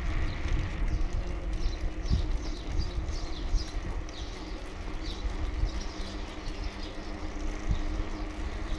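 Bicycle rolling along an asphalt street: a steady low road and wind rumble on the bike-mounted microphone. Small birds chirp in short calls over it throughout.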